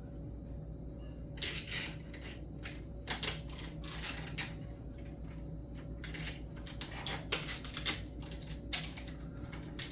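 Small metal deadbolt lock parts clicking and clinking as they are handled and fitted, in irregular sharp clicks starting about a second in, over a steady low hum.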